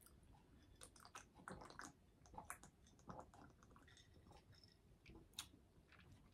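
Faint, close-up chewing of food, with irregular soft mouth clicks.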